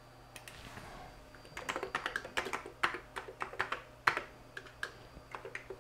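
Computer keyboard being typed on: a few key taps, then a quick, uneven run of keystrokes from about a second and a half in, as a password is entered.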